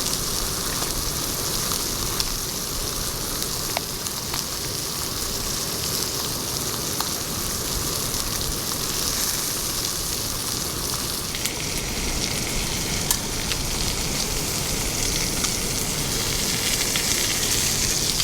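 Steak sizzling in an oiled pan: a steady frying hiss with scattered small pops.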